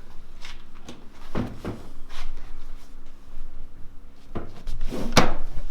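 Loose car parts being handled and rummaged through: a series of irregular knocks and clunks, with the loudest near the end.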